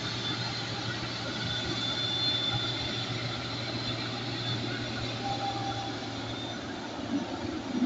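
Boeing 777 jet engines running at taxi power: a steady rushing noise with a thin high whine, growing louder and deeper near the end as the airliner rolls past.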